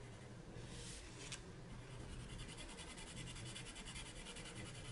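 Black Widow Monarch colored pencil scratching back and forth on toothy Spring Hill paper as a swatch is shaded in: faint, with rapid, even strokes. There is a light tick a little over a second in.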